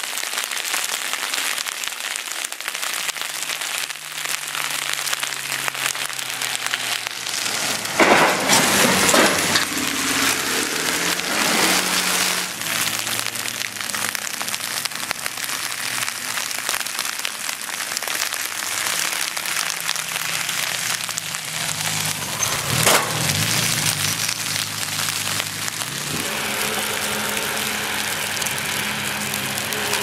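Steady hiss of heavy rain, with car engines passing now and then, their pitch sliding up and down; louder rushes come about eight seconds in and again near twenty-three seconds.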